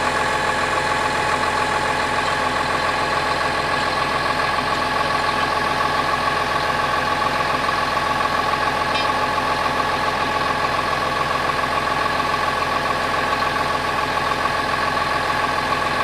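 Diesel engine of a tracked forestry harvester running steadily at idle, an even, unchanging drone with a high steady whine over it.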